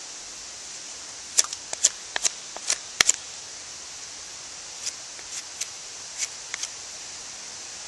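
Knife blade carving a split stick of arborvitae wood: a quick run of sharp shaving cuts about a second and a half in, then a softer run of cuts about five seconds in, over a steady hiss.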